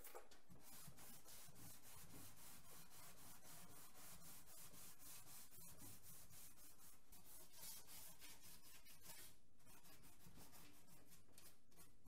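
Sandpaper rubbed back and forth by hand over a painted motorcycle body panel, in a steady run of about three or four faint strokes a second with a short break about nine seconds in: hand sanding the clear coat ahead of buffing.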